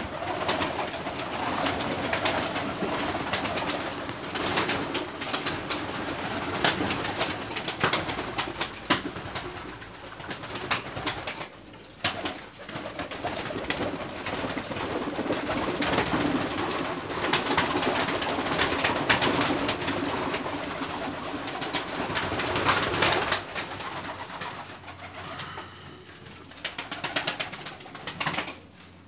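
A loft full of domestic pigeons, Turkmen smooth-headed and Baku pigeons, cooing, with wings flapping as birds take off, fly and land on the perches. The flock is busiest for the first two-thirds and quieter after about 23 seconds.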